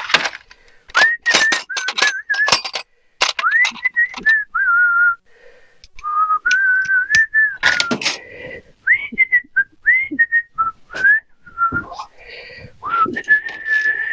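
A person whistling a wandering tune in short, gliding notes, over frequent sharp clicks and knocks.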